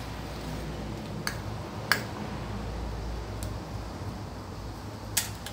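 Metal ladle stirring banana pieces in boiling sugar water in a stainless steel pan, clinking sharply against the pan three times, loudest about two seconds in, over a steady low hum.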